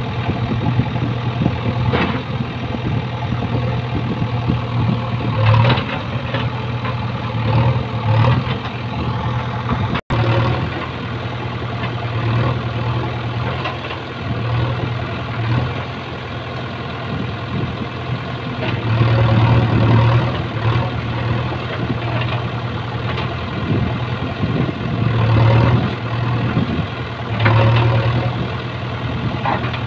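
JCB backhoe loader's diesel engine running steadily, swelling under load several times as the backhoe arm works. A few short knocks and scrapes come from the bucket pushing soil.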